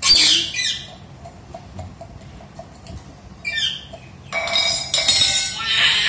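A rose-ringed parakeet gives a harsh squawk that falls in pitch right at the start, and a shorter call about three and a half seconds in. From a little after four seconds a steel tumbler clatters and rings as the bird pushes it over the tiled floor.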